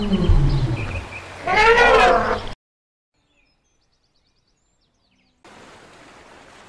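Elephant calling: a low rumble sliding down in pitch, then a louder, higher call that rises and falls about a second and a half in, cut off suddenly. A few seconds of silence follow, then faint outdoor background hiss.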